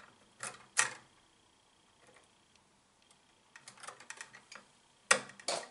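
Pliers clicking and scraping on copper wire ends as the bent wire hooks are reshaped: two sharp clicks in the first second, a run of small ticks around four seconds in, and two more sharp clicks near the end.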